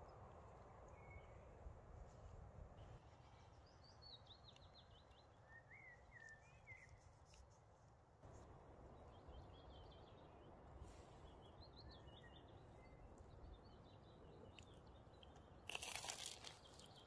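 Faint outdoor background with birds chirping now and then. About sixteen seconds in, a short, louder crunch as a crispy fried fish cake is broken open by hand.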